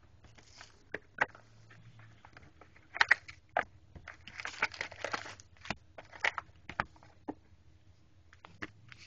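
A trading-card box and its packaging being opened by hand: crinkling and tearing of wrapper, with scattered sharp clicks and taps from handling, and a longer crinkly rustle about four to five seconds in.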